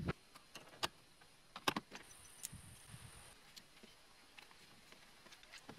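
Faint scattered clicks and knocks of a handheld CB radio being handled inside a car, the sharpest a pair about a second and a half in, over a low hiss.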